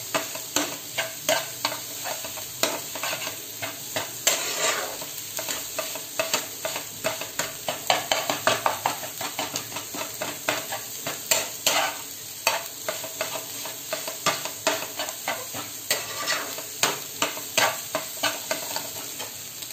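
Steel spatula scraping and knocking against a frying pan, several strokes a second, as egg bhurji is stirred and broken up fine, with a steady sizzle of frying underneath.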